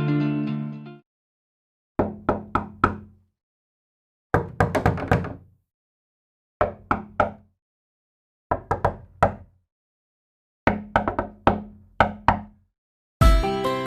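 Five separate door-knock sound effects, each a quick series of about three to six raps, with a short silence between groups.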